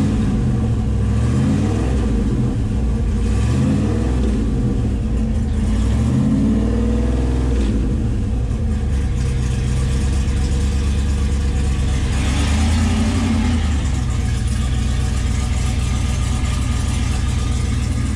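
V8-swapped Toyota Cressida's engine revved in several quick blips over the first eight seconds or so, each rise falling back, then settling into a steady idle with one small rev about two-thirds of the way through.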